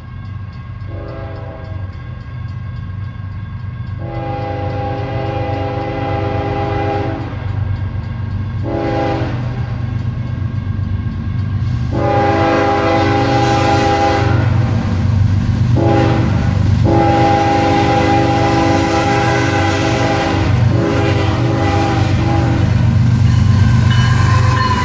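CSX ES44AH locomotive's horn sounding a series of long and short blasts as the train approaches, over the low rumble of its diesel engines, which grows steadily louder.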